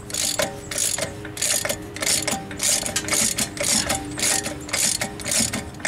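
Hand socket ratchet clicking in quick short strokes, about two to three strokes a second, as a lug nut is run down a 1/2-inch-20 wheel stud.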